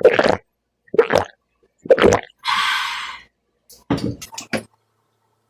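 A person drinking right after a toast: three gulps about a second apart, then a breathy exhale, then a few sharp clicks.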